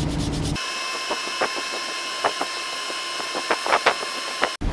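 Toothbrush scrubbing a plastic crankbait in isopropyl alcohol: a few short, scratchy brush strokes at irregular intervals over a steady hum with a high whine, which cuts off abruptly near the end.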